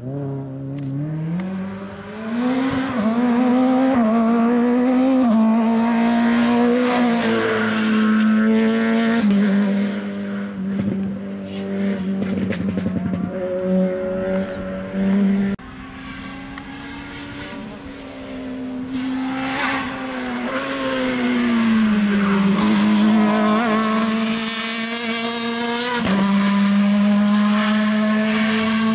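Rally car engine driven hard, its pitch climbing under acceleration, holding, then dropping abruptly at several gear changes, with a long fall and rise partway through.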